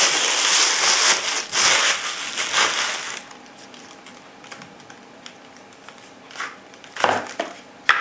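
Thin clear plastic bag crinkling loudly as binoculars are slid out of it, stopping about three seconds in. After that come light scattered clicks and a few short knocks as the rubber-armoured binoculars are handled.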